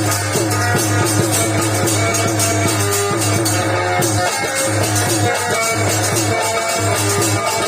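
Instrumental music with no singing: a wavering melodic lead over a steady low bass note and fast drum strokes, in an Indian folk style.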